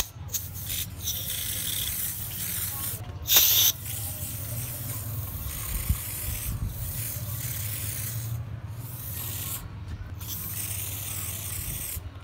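Homemade spray-paint bottle hissing as paint is sprayed from its nozzle in bursts: several short ones at first, a loud short burst about three seconds in, then longer stretches of hissing with brief pauses. A low steady hum sits underneath.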